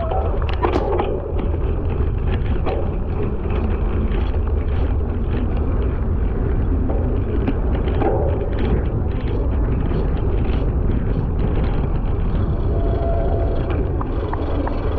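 A cyclocross bike ridden fast over rough grass, heard with heavy wind buffeting the microphone. The knobby tyres roll with a steady low rumble, and small clicks and knocks from the bike rattling over bumps come throughout.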